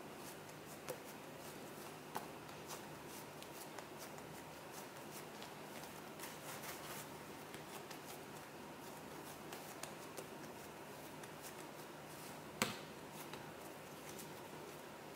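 Hands pressing and rolling a piece of bread dough on a silicone baking mat: faint soft rubbing and light taps, with one sharper click near the end.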